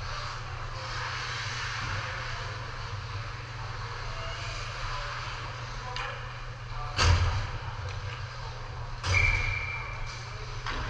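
Ice hockey game play in a rink over a steady low hum: two loud hits, the first and loudest about seven seconds in and the second about two seconds later, then a short steady whistle lasting about a second.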